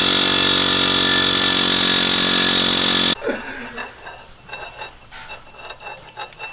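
Pneumatic air hammer running in one continuous burst against a seized flywheel bolt, a loud rapid rattling that cuts off abruptly about three seconds in. Lighter metallic clinks and knocks follow.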